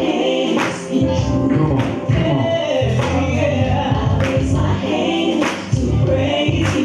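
Gospel song with sung vocals and choir-like backing voices over a steady beat, a sharp percussion hit about every second and a bit.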